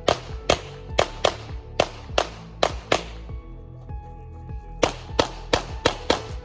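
A string of gunshots in quick succession, about three a second: a dozen or so shots, a pause of under two seconds, then about half a dozen more. Background music plays throughout.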